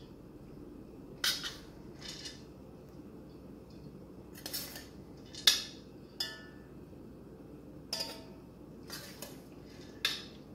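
Metal spoon clinking and scraping against a metal bowl and pot while boiled basmati rice is spooned out in layers. About eight sharp clinks, the loudest about five and a half seconds in, some with a short metallic ring.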